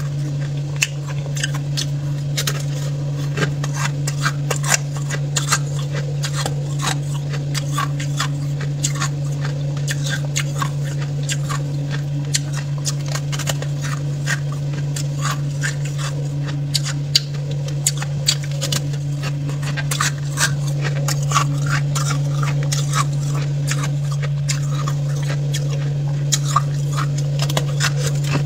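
Freezer frost crunching and crackling close to the microphone in a dense, rapid run of small crackles, over a steady low hum.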